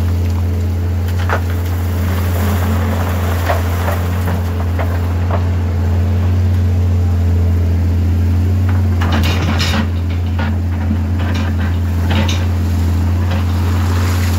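Caterpillar 320CL excavator's 3306 six-cylinder diesel running steadily at working speed, a deep even drone. Scattered knocks and clatter, heaviest about nine to ten seconds in.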